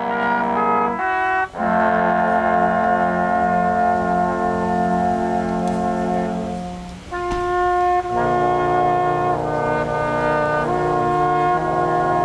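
Brass quintet playing a slow piece in held chords, with short breaks between phrases about a second and a half in and again about seven seconds in.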